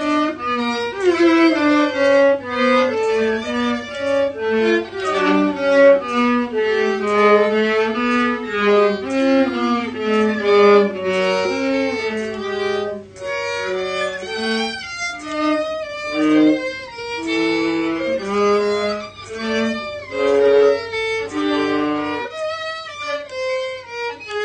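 Two violin parts bowed together in harmony, a melody over a lower line, the two parts recorded separately by one player and layered.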